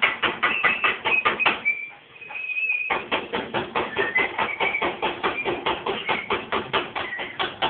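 Rapid metal-on-metal striking in a welding shop, about five even blows a second, each with a short ringing tone. The blows stop for about a second roughly two seconds in, then carry on at the same pace.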